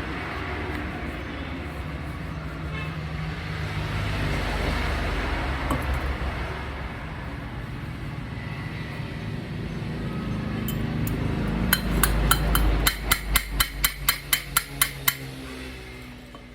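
Steady low mechanical hum, then, about twelve seconds in, a quick even run of about a dozen sharp taps, around three a second, that stops shortly before the end.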